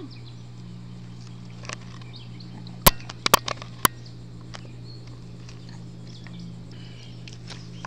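Steady low hum with a cluster of four sharp clicks about three seconds in, the first the loudest.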